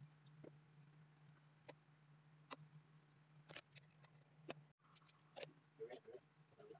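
Near silence: a faint steady low hum with a few faint scattered clicks and taps.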